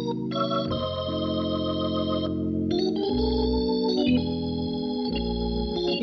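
Jazz organ trio playing from a cassette tape recording: held organ chords change every second or so over sustained low bass notes.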